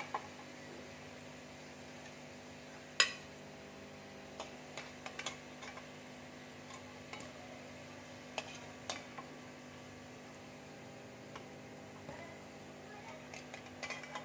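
Litti balls sizzling gently in hot oil in a kadai, while a steel perforated skimmer clinks against the pan as the balls are scooped out. There are scattered sharp clinks, the loudest about three seconds in.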